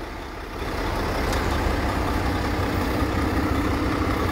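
Diesel engine of a 2015 Mack CXU613 semi truck idling steadily, a low rumble that grows a little louder about half a second in.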